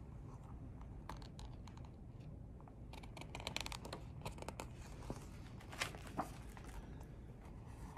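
Pages of a hardcover picture book being turned and flipped through by hand: soft paper rustling and crinkling with scattered light clicks, busiest about three seconds in and with two sharper flicks near the end.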